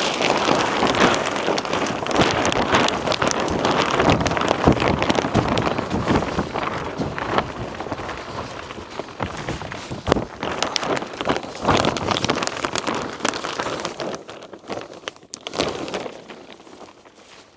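Greenhouse plastic sheeting crackling and flapping in gusty wind, a dense rustle full of sharp crinkles that dies down near the end.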